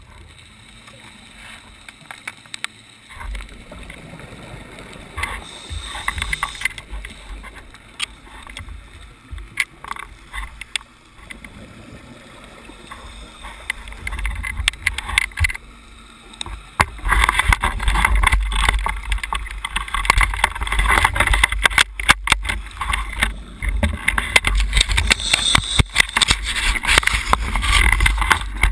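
Muffled underwater noise heard through a camera's waterproof housing: a steady low rumble and haze with scattered knocks and clicks from handling, much louder for the last dozen seconds.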